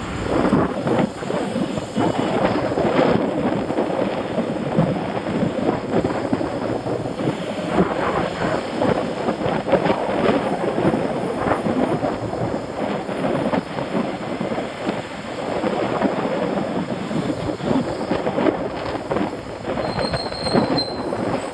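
Continuous rumbling, rattling noise of a bicycle ride: wind buffeting the microphone and road vibration shaking the camera as the bike rolls along.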